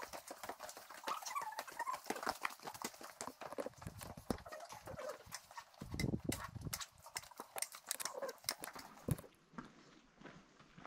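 Footfalls on a dirt trail: a quick, irregular run of steps that thins out near the end.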